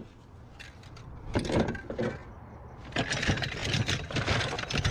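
Objects being rummaged through and handled: a few knocks about a second and a half in, then a steady clatter of small items knocking together from about three seconds.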